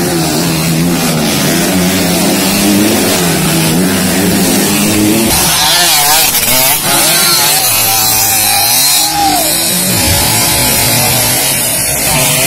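Dirt bike engines revving up and down as riders take the corners of a motocross track. About five seconds in the sound changes abruptly to another bike revving higher, over a steady hiss.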